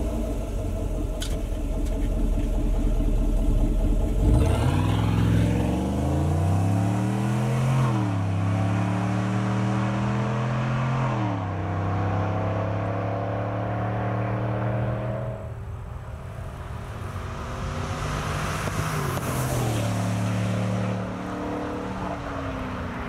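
Chevy Silverado / GMC Sierra 1500 5.3L V8 through a CORSA 3.0-inch cat-back exhaust (Sport sound level). A low exhaust rumble for the first few seconds gives way to hard acceleration through the gears: the pitch climbs and drops back at each upshift, twice, then holds steady at cruise. After a break, the truck accelerates again with another gear change near the end.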